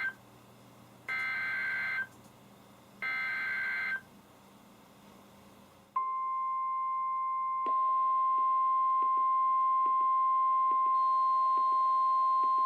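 NOAA Weather Radio SAME (Specific Area Message Encoding) header data bursts, two-tone warbling bursts about a second long, repeated a second apart, encoding a severe thunderstorm warning. About six seconds in, the steady 1050 Hz warning alarm tone starts. About a second and a half later several weather radio receivers join in with their own alarm tones and repeating beeps, and another alarm adds a higher tone near the end.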